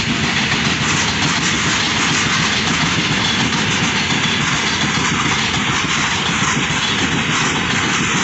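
Freight train of open-top wagons rolling past on the adjacent track: a loud, steady noise of wagon wheels running on the rails.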